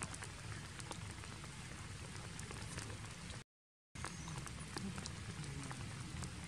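Forest ambience: a steady hiss with many light scattered ticks and crackles, cutting out completely for about half a second around three and a half seconds in.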